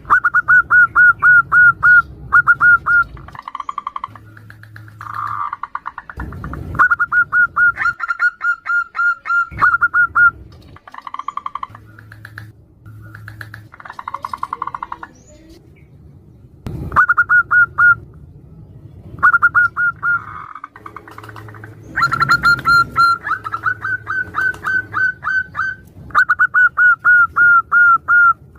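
Zebra doves calling back and forth, in repeated runs of quick, short staccato coos, about six notes a second, broken by brief pauses.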